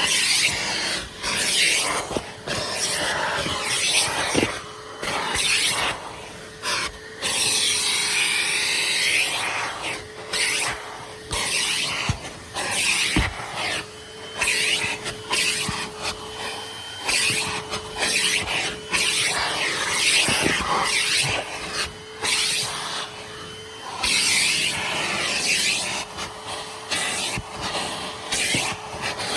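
Kenmore Progressive upright vacuum's 12-amp Panasonic motor running with a steady hum while its hose tool is worked over car upholstery; the rush of suction swells and dips as the tool moves, with rubbing and scrubbing against the surface and occasional clicks.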